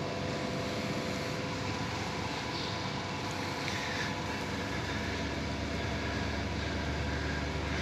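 Steady background hum of the surroundings, with a few faint steady tones and a low rumble that grows slightly stronger about five seconds in.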